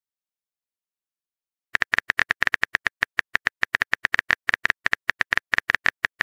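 Smartphone on-screen keyboard key-tap clicks, a rapid even run of about ten taps a second, starting after a short silence.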